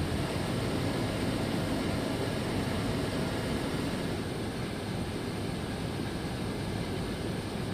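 Steady cabin noise inside a KC-10 Extender tanker aircraft in flight: an even rushing hiss with no distinct tones or knocks.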